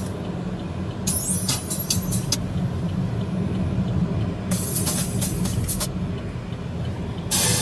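Road noise inside a car driving at highway speed: a steady low rumble of engine and tyres, with short bursts of hiss about a second in, around five seconds, and again near the end.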